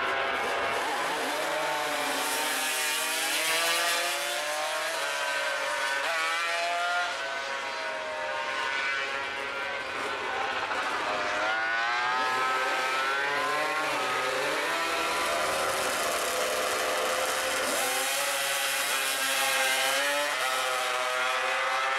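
Drag racing motorcycle engines revving and running down the strip, more than one engine at a time, their pitch climbing and dropping again and again.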